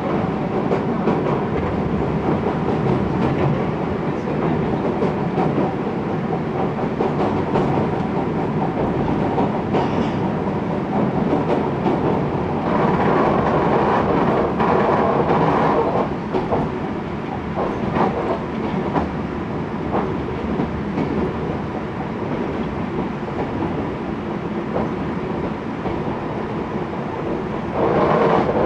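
Running noise inside an Oigawa Railway 16000 series electric train (ex-Kintetsu): a steady rumble with wheels clicking over rail joints. It grows louder for a few seconds about halfway through as the train crosses a steel truss bridge, and louder again near the end.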